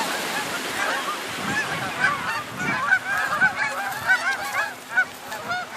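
A large flock of geese honking, many short calls overlapping continuously.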